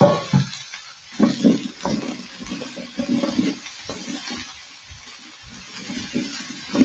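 A knock at the start, then a spatula stirring and turning a heap of raw chayote strips in a wide pan, with irregular scraping and shuffling that comes and goes.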